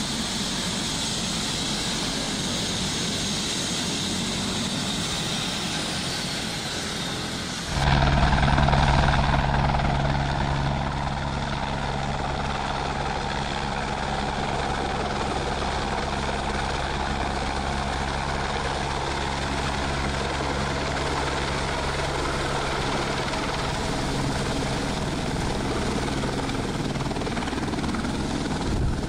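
Light helicopter coming in to land and hovering: a continuous steady rotor and turbine engine noise. About eight seconds in, the sound abruptly jumps louder and deeper, with a steady low drone, then holds steady.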